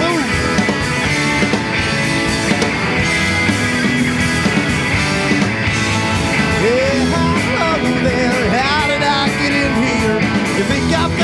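Live rock band playing, with drums and electric guitar, before the vocals come in.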